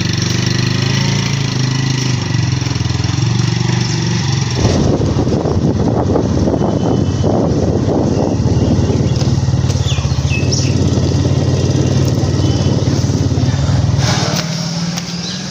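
Motorcycle engine running steadily as it pulls away. About four and a half seconds in, the sound changes abruptly to a rougher, noisier engine-and-wind mix, which drops away about a second before the end.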